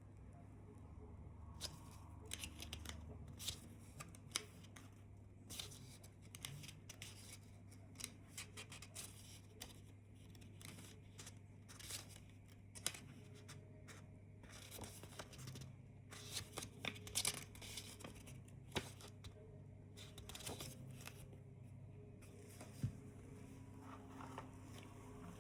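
Hands handling packaging during an unboxing: scattered light clicks, rustling and tearing of cardboard and plastic, faint, over a low steady hum.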